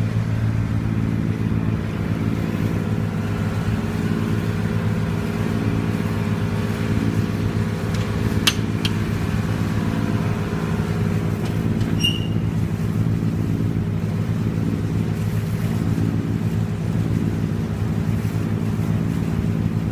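Passenger ferry's engine running steadily, a deep even drone heard on board as the boat moves through the harbour. A single sharp click about eight seconds in and a short high squeak about twelve seconds in.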